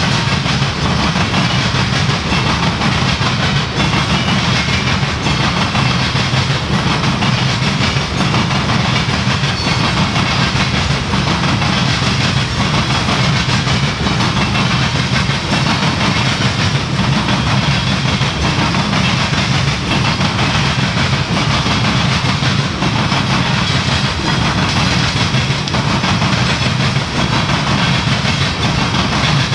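Loaded coal hopper cars of a freight train rolling past, their steel wheels on the rails making a steady running noise with faint repeated clicks.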